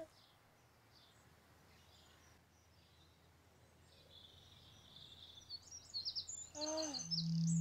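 Birds chirping and twittering in a high, thin chorus, faint at first and busier and louder over the last few seconds. Near the end comes a short falling pitched sound, and then a steady low tone starts and holds.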